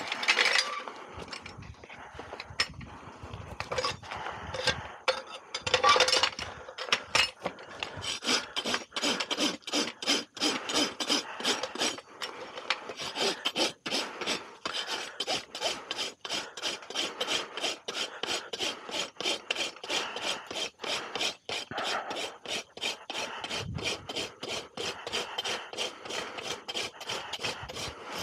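Farrier's hand rasp filing a horse's hoof in steady back-and-forth strokes, about two to three a second, starting some eight seconds in. Before that come irregular scuffs and knocks as the hoof is picked up.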